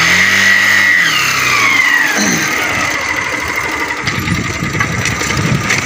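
Motorcycle engine running at low speed, its note dropping over the first two seconds as the throttle eases. A high whine falls in pitch about a second in.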